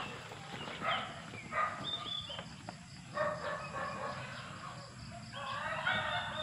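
Chickens calling in several short bouts, with the longest run of calls near the end.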